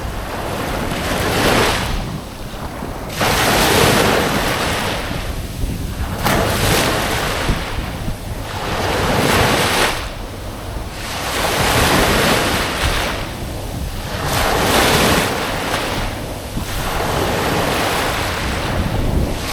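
Small waves breaking and washing up a beach, each swell of surf rising and falling away every two to three seconds. Wind rumbles on the microphone underneath.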